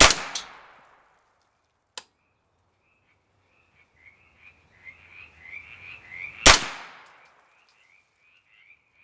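Two 9mm pistol shots firing powder-coated cast-lead reloads, the first right at the start and the second about six and a half seconds later, each a sharp crack with a short ringing tail. About two seconds after the first shot a faint little click is heard: the trigger resetting as it is released slowly.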